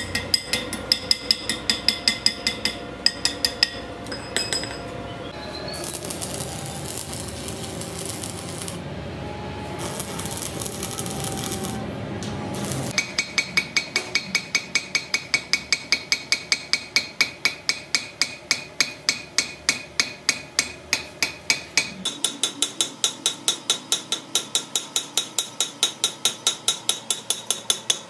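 A hammer striking a steel punch set against a broken bolt in a wheel hub's flange: rapid, ringing metal-on-metal blows at about three a second. In the middle there is a stretch of several seconds of rougher scraping noise with no blows, and the ring of the strikes changes pitch near the end.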